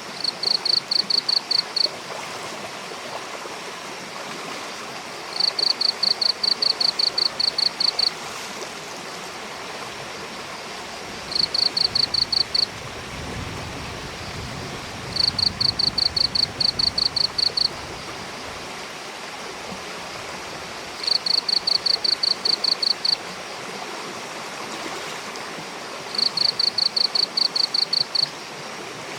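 Steady rush of a running stream, with a small animal's high, rapid chirping call heard six times. Each call is about one and a half to two and a half seconds of quick pulses, about six a second, repeating every five to six seconds.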